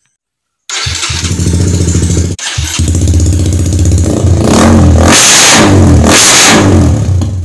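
Honda RS150's single-cylinder engine running loud through an aftermarket slip-on exhaust, starting abruptly about a second in and revved up harder twice near the end. The sound breaks off for a moment after about two and a half seconds.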